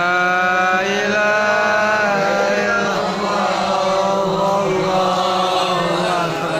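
Melodic Arabic Qur'an recitation: a single voice chants long, drawn-out phrases that glide up and down, amplified through a microphone, with a steady low hum underneath.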